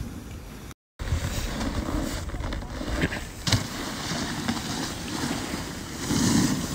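Wind rumbling and buffeting on a phone microphone, with a few short scuffs around the middle. The sound drops out completely for a moment just before a second in.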